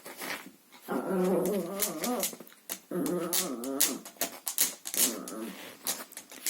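Chihuahua growling in two long, wavering bouts while playing with a vacuum cleaner hose, with sharp clicks and knocks between and after them.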